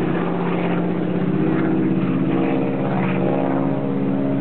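Propeller airplane engine running with a steady drone.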